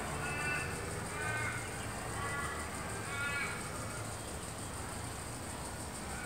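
A bird calling: four short calls about a second apart, then stopping, over a steady high hiss.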